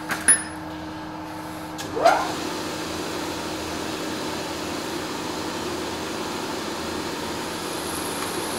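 Milling machine spindle running with a small twist drill cutting into a steel cylinder, drilling a port hole. About two seconds in there is a short rising screech as the drill bites, then a steady cutting noise over the spindle hum.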